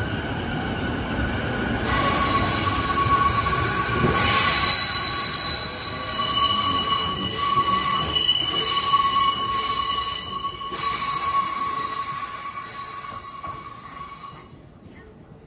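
JR East E233-0 series electric train pulling out, its wheels squealing in steady high tones over the rumble of the cars. The sound fades away near the end.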